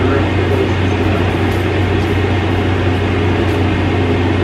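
A steady low hum with an even hiss over it; no other distinct sound.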